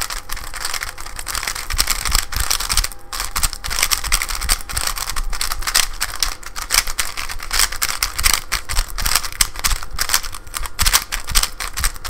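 Boron-treated, lightly lubed MoYu WeiLong GTS (GTS-1) 3x3 speed cube being turned fast by hand: a continuous rapid clicking and clacking of plastic layers. The solvent has softened the surface of its plastic, which makes it sound markedly different from an untreated GTS.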